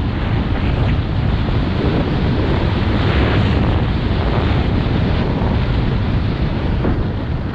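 Loud, steady wind buffeting the microphone as the person filming moves fast down a snowy slope.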